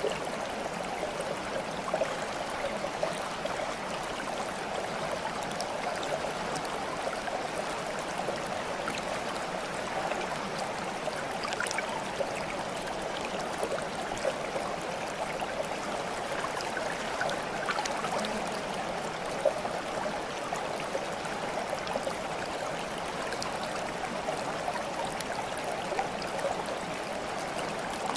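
Running water of a small stream, babbling and gurgling steadily, with scattered small splashes and drips.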